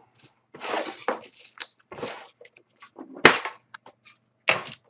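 Rustling and clattering as a tin of trading cards and its packaging are handled, with a sharp knock about three seconds in and another shortly before the end.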